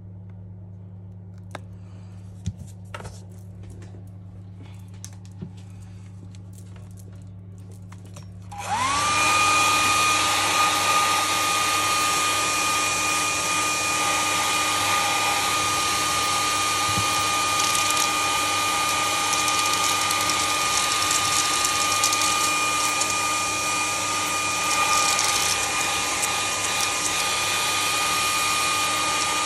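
A few faint clicks, then a hand-held hair dryer is switched on about a third of the way in. Its motor whine rises and settles to a steady pitch over a loud, steady rush of air. It is aimed at the phone to warm the glue.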